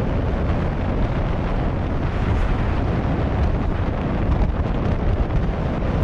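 Steady wind noise buffeting the microphone of a helmet camera on a moving motor scooter, mixed with road and engine noise from the ride.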